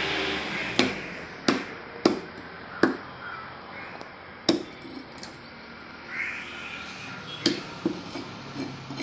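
Knife chopping into a pangasius catfish on a wooden chopping block: a series of sharp single chops, several in the first few seconds and one more a little after the middle, then a few lighter knocks near the end.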